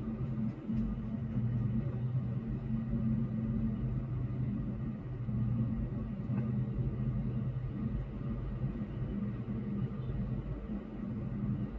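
Steady low rumbling hum with a few brief dips, no distinct events.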